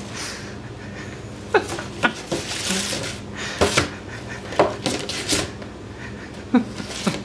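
Ice cube knocking and sliding around inside an empty cardboard 12-pack box as a cat paws at it: several sharp, irregular knocks with a brief scrape near the middle.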